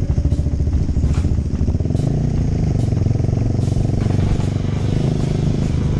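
Motorcycle engine running under way, its note rising as it picks up revs about two seconds in, with a few sharp ticks over it.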